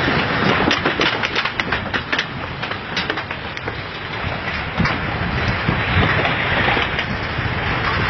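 Earthquake noise: a continuous rumble with a dense run of sharp cracks and snaps, heaviest in the first half, as structures and timber give way under moving ground. Toward the end a steadier hiss takes over.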